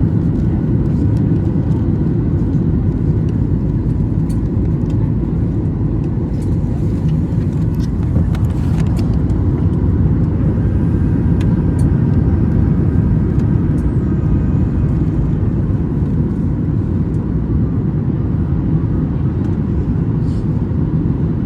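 Steady low rumble inside a Boeing 737-800's cabin: its CFM56-7B engines and the airflow along the fuselage, with a faint whine about halfway through.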